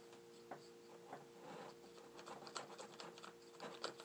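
Faint, irregular clicks and scratches of hands handling a paintball gun and its barrel, getting busier after about two seconds, over a steady electrical hum.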